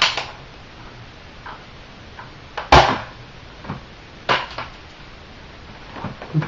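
Nerf Nite Finder spring-plunger dart pistol, modified to shoot an airsoft BB, being cocked and fired in a test shot: a string of sharp plastic clacks and clicks, the loudest about three seconds in.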